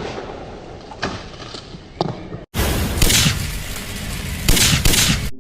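Two sharp shots from a .177 air rifle about a second apart over steady background noise. After a sudden cut, a louder stretch of rushing noise with two brighter bursts follows.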